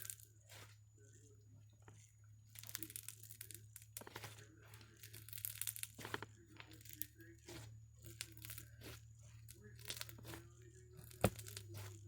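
Galaxy slime being stretched and squished in the hands, giving irregular crackling clicks and pops, with one sharper click near the end.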